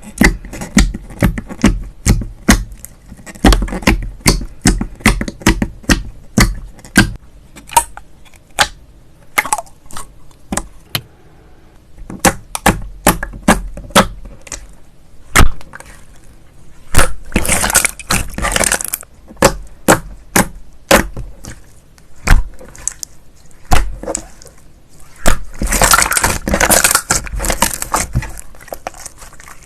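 Slime being poked, pressed and squished by hand, giving a long run of sharp popping clicks. Two stretches of dense crackling come a little past halfway and again near the end.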